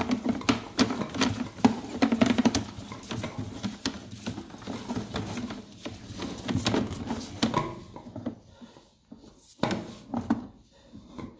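Irregular clicking and rattling of a sewer inspection camera's push cable being fed down a drain line, thinning out after about eight seconds.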